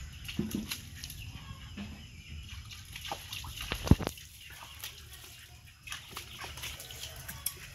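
Water splashing and dripping as a small monkey's soapy hands are rinsed over a plastic tub, with scattered small splashes and a sharp knock about four seconds in.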